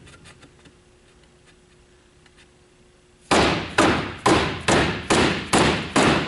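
Dead blow hammer striking the top edge of a pine Langstroth hive box board, driving the very tight finger joints together. After a few quiet seconds the blows start about halfway in, a steady run of taps about two a second.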